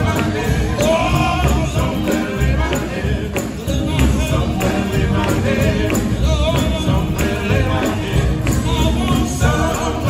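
Male gospel quartet singing live in close harmony, backed by a band with electric guitar, keyboards and drums keeping a steady jingling beat.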